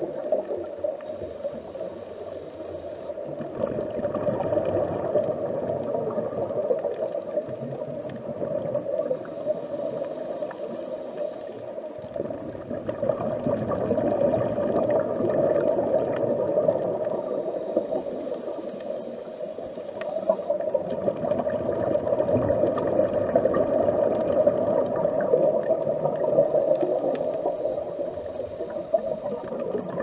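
Underwater ambience: a dense, steady wash of water noise heard from beneath the surface, swelling and easing about every eight seconds.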